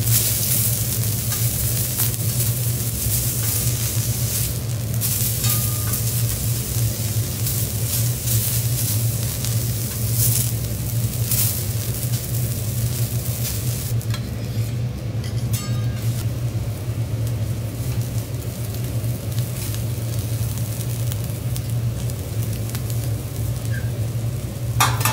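Vegetables sizzling on a teppanyaki steel griddle, with occasional clicks and scrapes of a metal spatula and fork against the plate. A steady low hum runs underneath.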